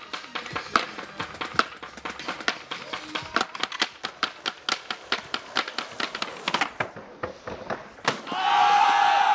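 A run of sharp clicks and taps, a few a second, then about eight seconds in loud yelling from a group of skateboarders cheering a trick down the stairs.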